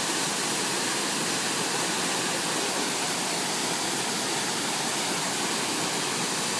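Large waterfall: water falling and splashing in a steady, even rush that does not change in level.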